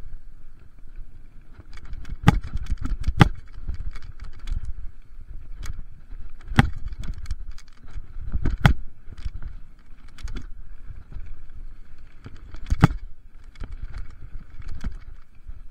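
Mountain bike clattering and rattling down a rough dirt trail, with wind rumble on the camera microphone and several sharp knocks as the bike hits bumps, the loudest about two, three, six and a half, eight and a half and thirteen seconds in.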